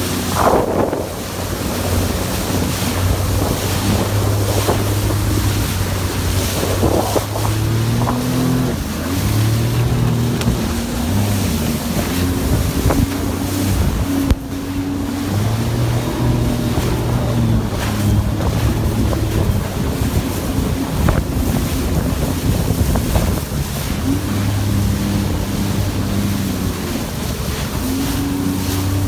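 Jet ski engine running at speed across waves, its note stepping up and down again and again as the throttle and load change. Wind buffets the microphone and water rushes and splashes against the hull throughout.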